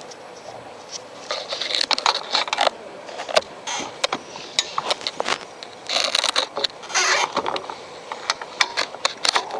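Irregular clicks, light knocks and scraping as the front shock absorber and its suspension parts are handled and worked loose by hand and with tools.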